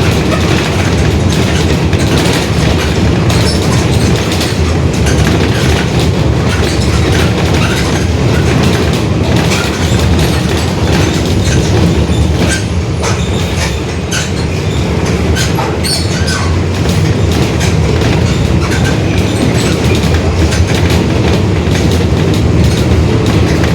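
Inside a Mercedes-Benz OF-1721 city bus on the move: the drivetrain runs steadily under a growling differential, with frequent rattles and knocks from the body throughout and a brief slight easing about halfway through.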